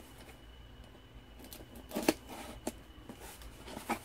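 Rummaging for a pair of scissors: light rustling with a few sharp clicks and knocks, the loudest about two seconds in.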